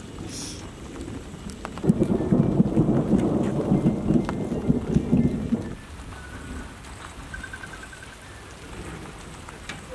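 Rain falling with thunder. A loud rumble starts about two seconds in, lasts about four seconds and cuts off suddenly.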